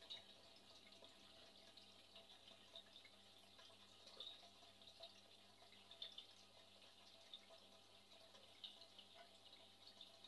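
Near silence: faint background hiss with scattered light ticks.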